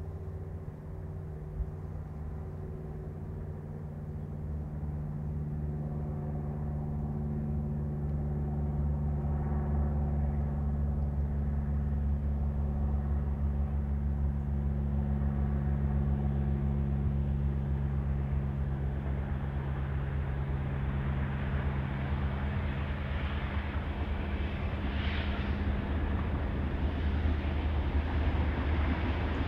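Class 37 diesel locomotives' English Electric V12 engines droning steadily as they haul a railhead treatment train, growing louder as the train approaches. A rushing noise builds over the engines near the end as the train draws level.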